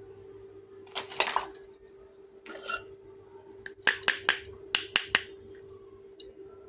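Small toy kitchen pieces being handled: two brief rustles, then a quick run of sharp clicks and clinks as pieces are set down or knocked together, with one more click near the end. A steady low hum runs underneath.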